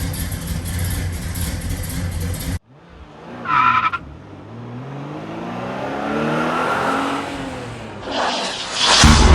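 Car sounds: a steady engine run that cuts off abruptly, then a short tire squeal, then an engine revving up and back down. A loud burst of noise starts near the end.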